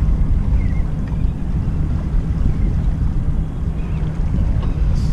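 Wind buffeting the microphone: a loud, steady, gusty low rumble.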